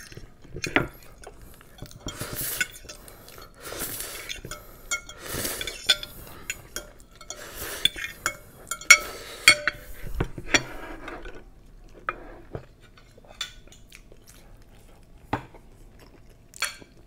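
Metal spoon scraping and clinking against a ceramic bowl, scooping up the last of a bowl of mi goreng noodles: many quick clicks and scrapes, thinning out to a few scattered clicks after about eleven seconds.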